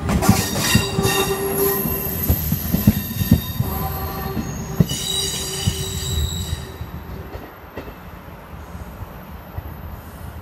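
Train of railway coaches rolling past, its wheels clacking over rail joints, with a high wheel squeal about five seconds in. The sound then fades as the train pulls away.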